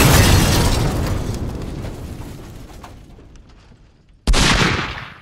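Edited-in explosion sound effect: a loud boom that dies away slowly over about four seconds. A second sudden boom comes about four seconds in and fades quickly.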